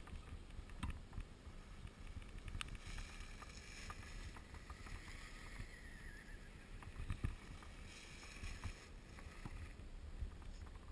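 Electric motor and gearbox of a 1:10 scale RC crawler truck whining as it drives over snow, coming up about three seconds in and dropping away near nine seconds, with a faint gliding pitch. Underneath, a low rumble and scattered light clicks.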